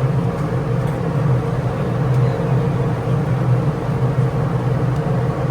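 Steady low engine rumble, like a vehicle idling close by.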